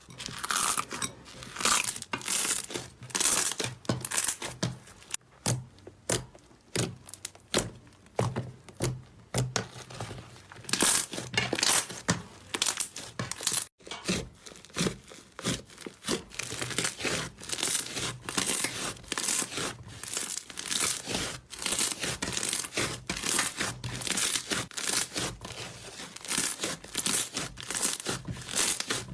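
Slime being squished and stretched by hand: a dense run of irregular crackling, popping squishes, several a second, with a momentary break about 14 seconds in.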